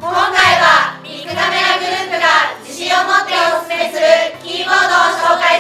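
A group of women's voices singing together in unison, in short phrases over a backing of steady low notes.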